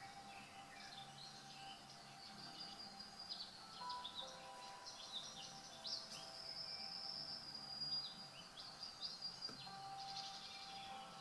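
Faint birdsong: many short chirps and trills from several birds, with a few held whistled notes.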